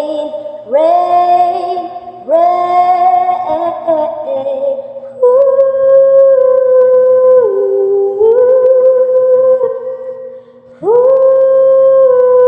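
A woman singing unaccompanied without words, humming long held notes that step down in pitch, in several phrases with short breaths between them.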